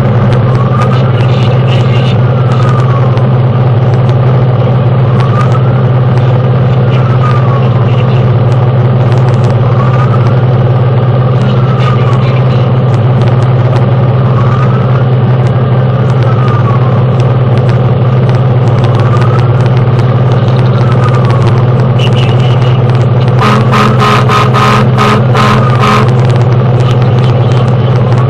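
Fire engine's motor droning steadily in the cab while its siren wails, rising and falling every few seconds. About twenty-three seconds in, the horn sounds in a rapid series of short blasts for two or three seconds.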